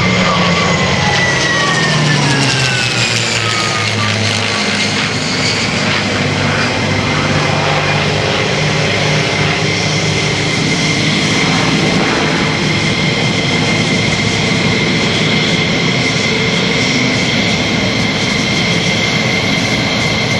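A-10 Thunderbolt II's twin General Electric TF34 turbofans, flying with a P-51 Mustang, passing overhead. The pitch falls over the first few seconds, then settles into a steady jet noise with a constant high whine as the A-10 banks away.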